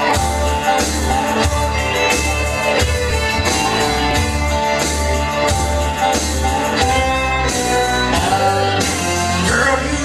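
Music with a steady beat and heavy bass.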